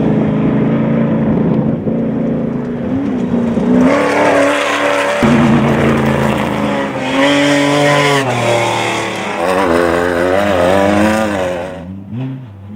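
Off-road race vehicle engines revving hard, the pitch climbing, dropping and wavering repeatedly as the throttle is worked. The sound switches abruptly to another engine about five seconds in.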